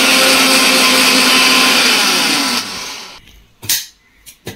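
Electric mixer grinder running at full speed, coarsely grinding roasted peanuts and sesame seeds in its steel jar. It is switched off about two and a half seconds in and winds down, followed by two short plastic clicks as the lid is taken off.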